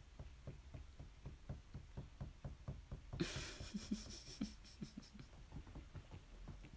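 Rapid, soft knocking, about five light taps a second and quite even, with a rustling hiss joining in about three seconds in.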